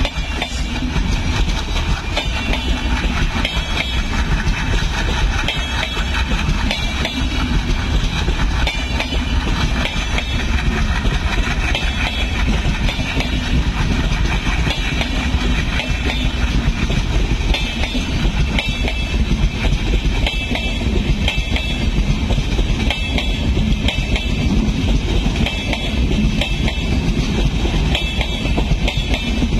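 Diesel-hauled express train pulling away: passenger coaches rolling past with wheels clacking over the rail joints, over the steady low rumble of the diesel locomotive engines.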